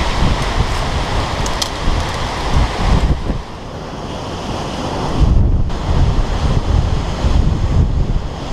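Strong, gusting wind buffeting the microphone: a rumbling roar that eases off a few seconds in, then gusts back up about two seconds later.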